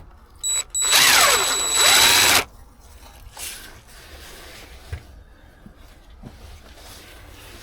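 Power drill running to undo bolts, with a short blip about half a second in and then a run of about a second and a half. It has a high motor whine, and its pitch slides down and back up as the speed changes.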